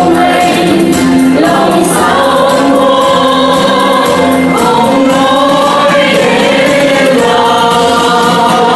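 Mixed male and female vocal group singing a Vietnamese song together over microphones, in long held notes.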